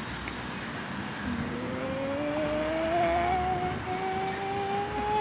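A motor vehicle accelerating, its engine note rising steadily in pitch for about four seconds, over a steady background hum.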